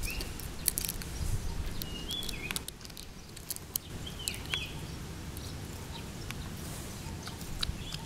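A long-tailed macaque eating a banana close to the microphone: irregular wet chewing and lip-smacking clicks. Short high chirps come every couple of seconds.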